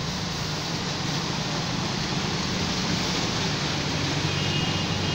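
Motorbikes and an auto-rickshaw driving through a flooded street: their engines run under a steady wash of water splashing and churning around the wheels. A brief faint high tone sounds about four seconds in.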